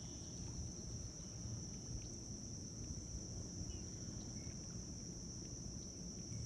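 Steady high-pitched insect drone over a low rumble.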